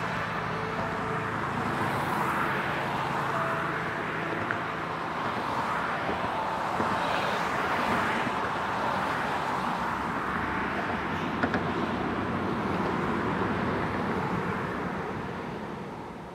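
Road traffic on a multi-lane highway, with cars and a pickup truck passing one after another, their tyre and engine noise swelling and easing as each goes by. The sound fades out near the end.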